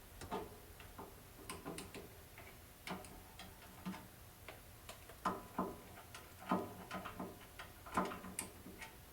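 Oil can being pumped onto snowthrower auger bolts: a string of irregular light clicks, some with a brief metallic ring.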